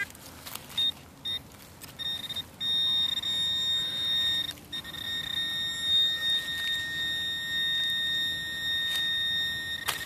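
Handheld metal-detecting pinpointer probe sounding its alert in the soil: a few short beeps, then from about a quarter of the way in one continuous high tone, the sign that its tip is right on a buried metal target.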